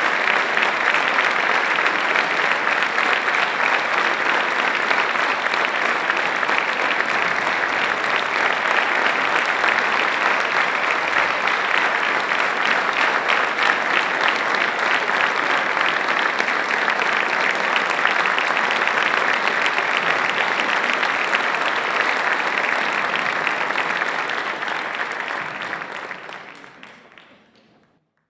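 Concert audience applauding steadily, a dense patter of many hands clapping; the applause fades out over the last few seconds.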